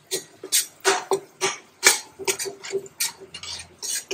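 Metal slotted spoon stirring and scraping in a stainless-steel pot as ginger-garlic paste fries in oil and ghee, with sharp irregular clicks and crackles several times a second.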